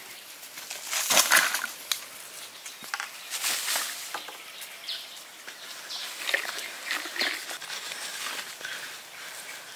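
Dry soil and stones poured out of a woven basket, landing in two loud rustling spills, about a second in and again about three and a half seconds in. Then softer scraping and rubbing as the loose earth is worked flat by hand with a wooden roller.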